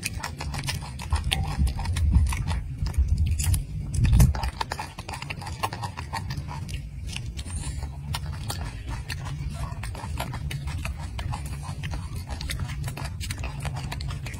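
Golden snub-nosed monkey eating a piece of orange fruit: a quick, irregular run of small mouth clicks and smacks as it chews, over a low rumble that is stronger for the first four seconds.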